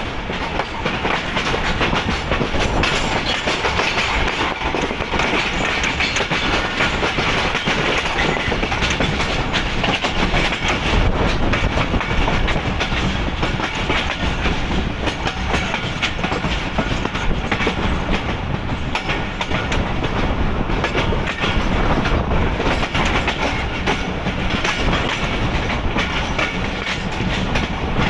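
Wheels of a moving passenger coach on the rails, with a steady rumble and a running clickety-clack of wheel clicks over rail joints and points, heard from the coach's open window.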